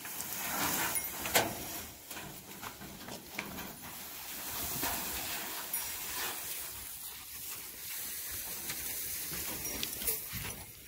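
Dry hay rustling as armfuls are pulled off a trailer and carried, with a few sharp crackles among the rustle.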